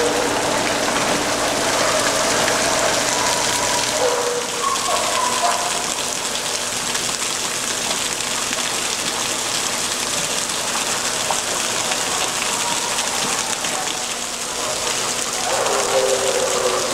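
Splash-pad water jets spraying steadily onto a shallow pool, with dogs wading and splashing through the water: an even rushing hiss.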